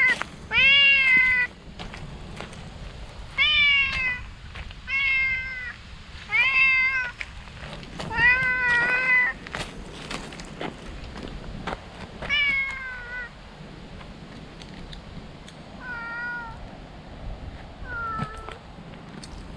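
Stray cat meowing loudly and repeatedly, about eight meows a second or two apart, each bending up and then down in pitch; the last two are fainter.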